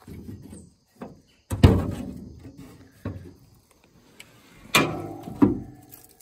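The steel hood of a 1971 Dodge Coronet being unlatched and swung open. A run of metallic clunks and knocks, with the loudest about a second and a half in and again near five seconds.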